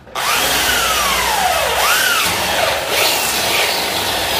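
Corded electric drill boring up into the concrete ceiling slab with a masonry bit, running under load. Its motor pitch sags and recovers several times as the bit bites.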